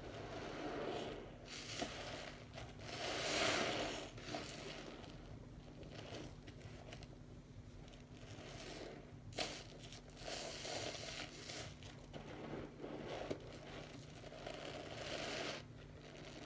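Soapy, water-soaked sponges squeezed by hand again and again in a sink of suds: wet squelching and the crackle of lather, each squeeze a swell of a second or so, the loudest a few seconds in.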